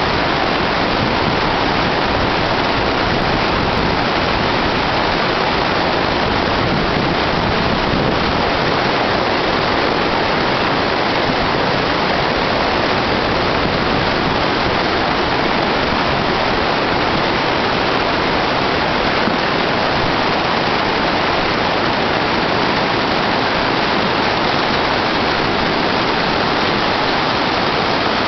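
Snowmelt-swollen stream pouring over rocks in a small waterfall and rapids: a loud, steady rush of whitewater.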